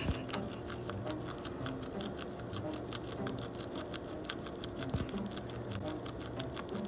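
Guinea pig chewing: a fast, irregular run of small clicks.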